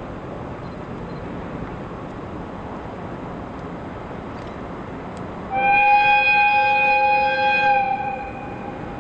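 EF200 electric locomotive sounding its horn once: a loud, steady chord lasting about two and a half seconds, starting about halfway through, over a steady background noise.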